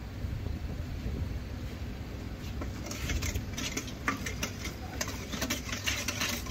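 A low steady rumble, joined about three seconds in by quick, irregular clicking and clatter.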